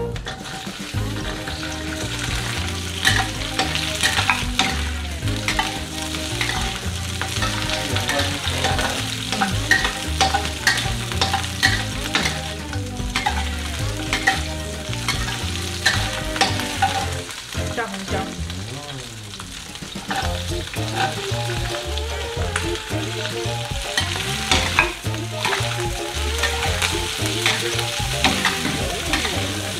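Sliced bell peppers stir-frying in hot oil in a stainless steel wok: a steady sizzle with frequent sharp scrapes and clacks of the metal spatula against the wok. The scraping eases for a couple of seconds a little past halfway, then picks up again.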